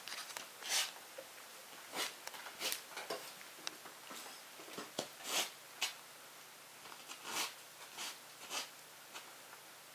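Soft, short scratching strokes at uneven intervals, about a dozen in all, as of something being worked by hand.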